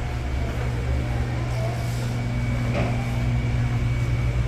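Ventisilva VPL 65 cm wall fan's 150 W motor running steadily, a low electrical hum under the rush of air from the blades.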